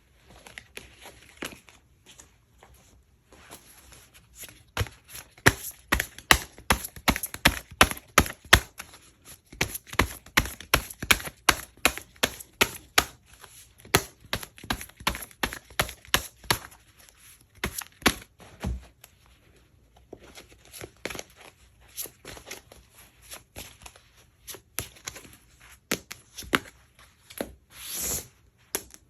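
Tarot cards being handled on a tabletop: a long run of quick taps and flicks, about three or four a second and thickest in the middle, thinning out toward the end.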